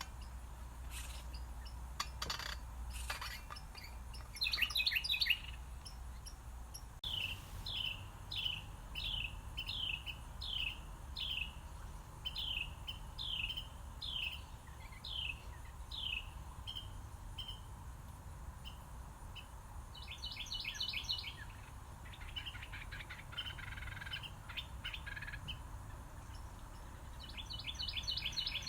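Songbirds singing: a run of about a dozen clear down-slurred notes, one every half second or so, with bursts of quick chattering trills and some buzzy notes. A few clicks sound in the first seconds.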